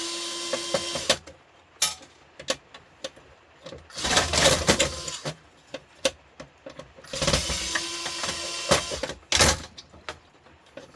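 Cordless drill-driver running in short bursts, three main runs of about one to two seconds each, backing screws out of the grill's casing, with small clicks and taps between the runs.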